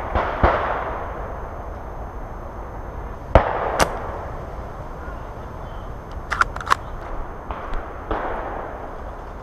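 Airsoft guns firing during a woodland skirmish: scattered sharp snaps, two near the start, two more about three and a half seconds in, and another about eight seconds in, each trailed by a brief rush. A quick run of small clicks comes around six and a half seconds in.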